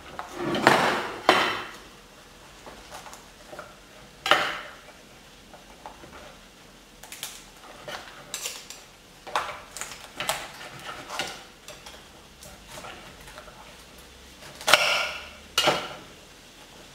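A small kitchen knife cutting and prying around a lobster's head shell on a wooden cutting board: irregular short scrapes and clicks of blade on shell and board. The loudest come about a second in, at about four seconds, in a cluster in the middle, and near the end.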